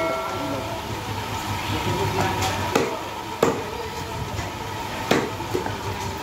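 Cleaver chopping goat meat on a wooden butcher's block: about five sharp knocks at uneven intervals, over a steady background hum.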